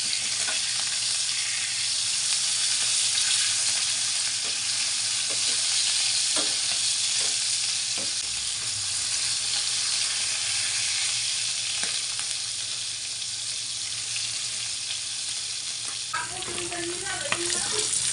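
Tuna pieces frying in hot oil in a metal pan: a steady sizzle, with a few light clicks of a metal spatula against the pan as the fish is turned.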